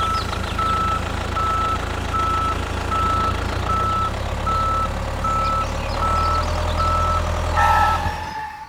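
Vehicle reversing alarm beeping steadily, a little over one beep a second, over the low rumble of an engine; the beeping stops about eight seconds in.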